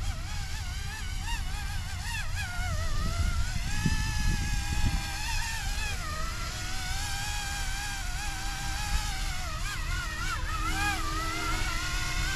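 YUXIANG F09-S RC helicopter's electric motor and rotor whine, its pitch wavering and gliding up and down as it flies, a little louder about three to five seconds in. Wind rumbles on the microphone underneath.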